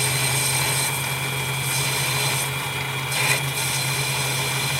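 Mini lathe running at low speed with a steady motor hum and a high whine while a parting tool cuts into brass bar stock. There is a brief sharper sound about three seconds in.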